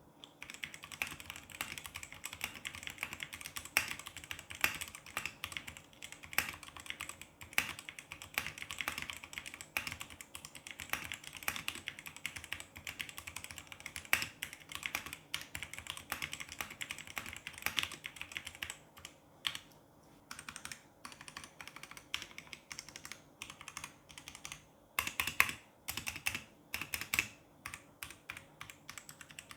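Vortex GT-6 mechanical keyboard being typed on at a fast, steady pace, a rapid stream of key clicks, picked up by a phone's microphone. The typing slows and turns patchy about two-thirds of the way through, then picks up again in a short flurry near the end.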